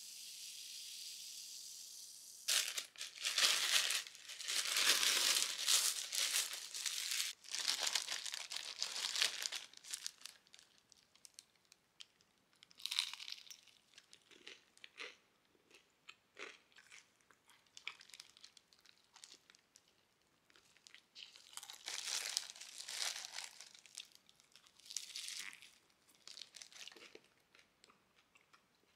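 Cola fizzing over ice in a cup for the first couple of seconds, then loud crinkling and rustling of thin plastic, with scattered lighter crackles and another spell of crinkling about 22 seconds in.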